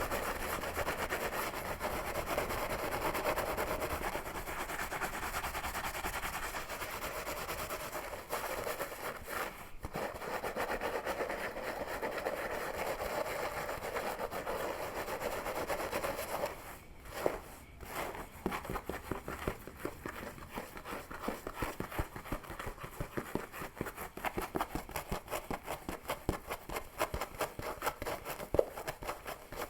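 Hair being rubbed and a scalp scratched by fingers: a dense, continuous rasping rub, then after a short break about two-thirds of the way through, quicker crackling scratches.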